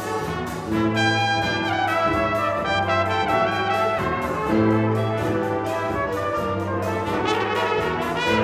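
High school concert band playing slow, held chords led by the brass. The bass notes move to a new chord about every three seconds.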